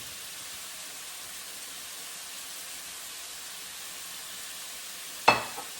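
Pork slices and carrot frying in oil in a pan, a steady sizzle. About five seconds in, a single sharp clink with a brief ring.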